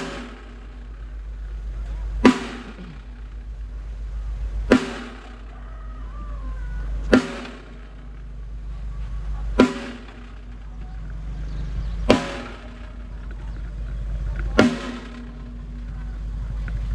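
A drum struck hard about every two and a half seconds, each hit ringing out, with a rising swell before every hit, over a steady low hum, as in a stage sound check.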